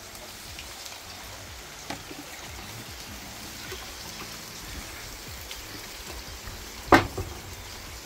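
Steady rain falling, with one sharp knock about seven seconds in and a fainter click near two seconds.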